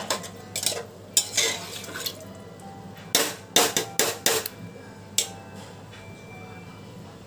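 Slotted metal spoon stirring mutton keema and potato curry in an aluminium pressure cooker, clinking and scraping against the pot at irregular intervals.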